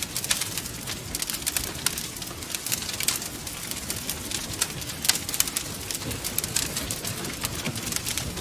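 Wood fire burning in a fireplace, with many sharp, irregular crackles and pops over a steady low rumble.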